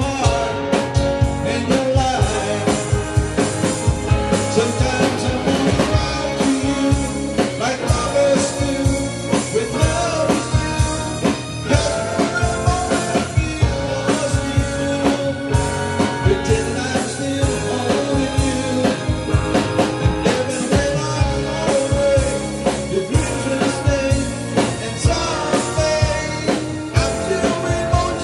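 Live rock band playing with a steady drum beat: electric guitar, bass guitar, drum kit and keyboard, with a man singing lead vocals through a microphone.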